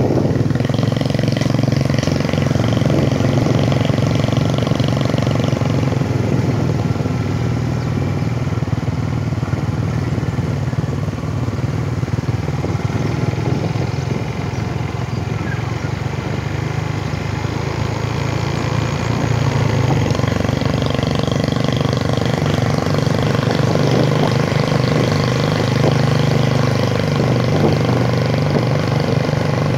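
Small motorcycle engine running steadily at cruising speed, with road and wind noise.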